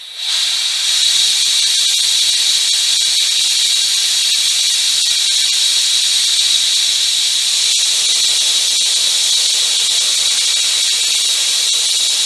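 Compressed air hissing loudly and steadily out of a 150-litre air compressor's tank as its pressure is released, with a high whistling edge to the hiss.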